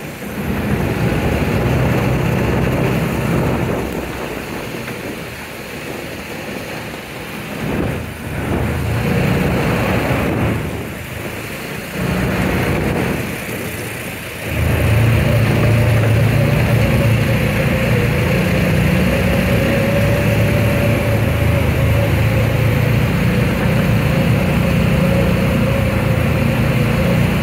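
Side-by-side off-road vehicle's engine running while driving on a gravel road, with easing off and picking up again several times, then a steady, louder pull from about halfway through with a thin steady whine above the engine note.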